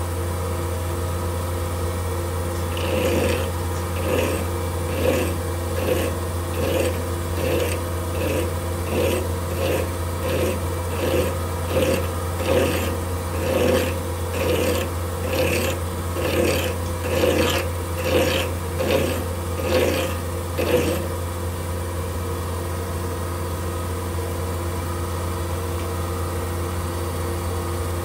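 Hand file stroked against a tungsten button spinning in a metal lathe: about two dozen even filing strokes, roughly one every 0.7 seconds, stopping about three-quarters of the way through. The lathe hums steadily underneath.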